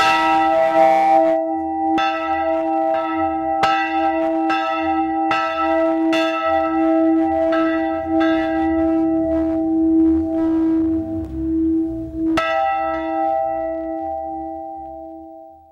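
Netherlands-cast bronze church bell rung by hand, heard close up in its belfry: about a dozen strokes, a second or two apart, over one long ringing tone. The last stroke comes about twelve seconds in, then the ring fades out.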